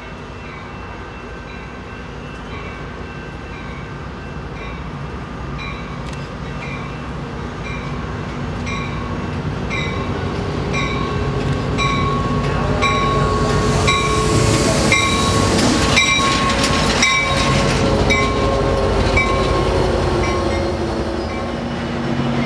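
Diesel-hauled Amtrak California passenger train approaching and running past, growing steadily louder over about twelve seconds, its engine tones sliding lower in pitch as it goes by. A bell dings about twice a second throughout.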